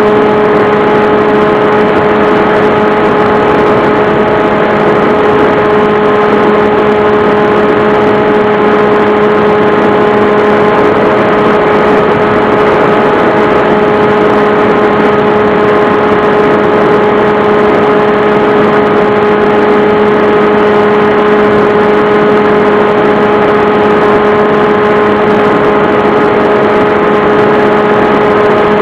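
The motor and propeller of an FPV model aircraft, heard through its onboard camera, running at a constant, unchanging pitch: a steady hum with a strong fixed tone over an even hiss.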